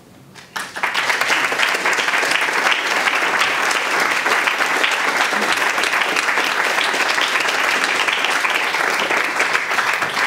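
Audience applauding: dense clapping that breaks out suddenly about half a second in and keeps going steadily, easing slightly near the end.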